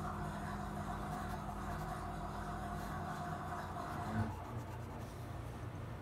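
Watercolor pencil scratching and rubbing on paper as fern leaves are drawn, over a steady low hum that fades about four seconds in.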